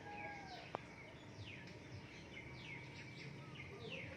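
Birds chirping in a run of short, quick downward-slurred calls over low background noise, with one sharp click just under a second in.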